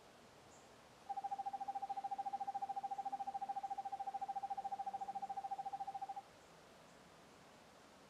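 Eastern screech owl giving its monotonic trill: one long trill of rapid, evenly spaced notes held at one pitch, starting about a second in and lasting about five seconds.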